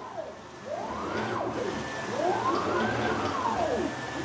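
Raw Creative DIY CNC machine's axis drive motors whining through rapid gantry moves at about 25,000 mm/min. The pitch sweeps up and down in overlapping arcs, about one a second, as each move speeds up and slows down.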